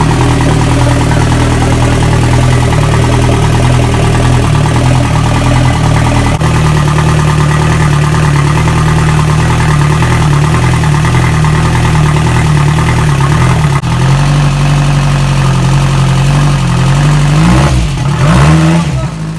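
Engine of a homemade jet-drive boat running loud and steady right after being pull-started by hand because the starter battery was flat, with a few short revs near the end.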